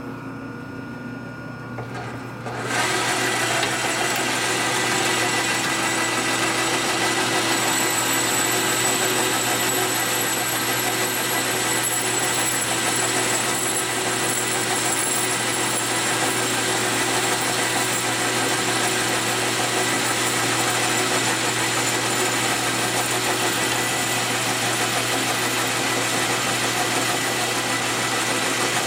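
A shop machine tool, cutting down a metal part, comes up to full noise about two and a half seconds in and then runs steadily: an even rushing noise with a faint high whine over it.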